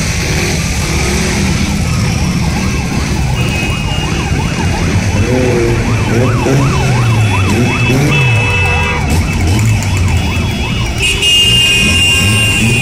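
A procession of motorcycles and a quad riding slowly past, engines running, with a fast warbling siren from about four to ten seconds in and horn toots near the end.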